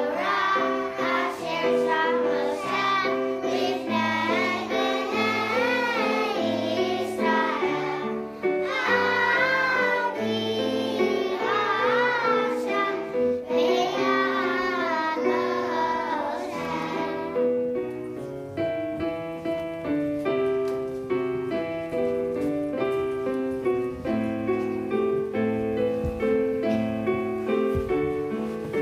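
Young children singing a song together over a keyboard accompaniment. The singing stops about two-thirds of the way through, and the keyboard plays on alone.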